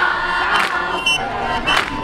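A group of men chanting and singing together in a Zulu traditional dance, with a sharp beat struck roughly once a second, and crowd noise behind.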